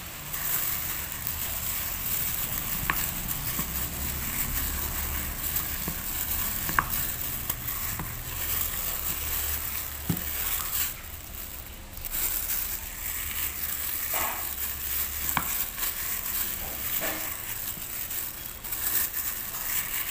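Plastic bag over a hand crinkling and squishing through soft mashed potato in a stainless steel bowl as it is mixed, with a few faint clicks along the way.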